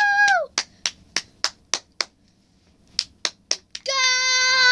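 A child's voice holding a high sung note that ends just after the start, then sharp hand claps at about three a second, a short pause, four more claps, and a lower held sung note near the end.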